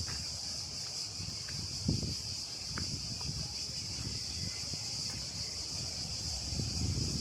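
Steady high-pitched buzzing of cicadas, with soft footsteps and a low wind rumble underneath.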